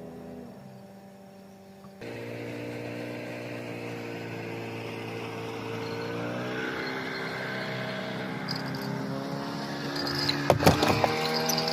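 A small engine running steadily, its pitch rising about six seconds in as it speeds up. Near the end comes a brief cluster of sharp knocks.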